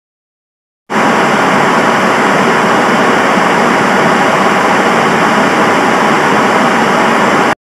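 Loud, steady rushing noise like static, with no pitch or rhythm, starting suddenly about a second in and cutting off abruptly near the end.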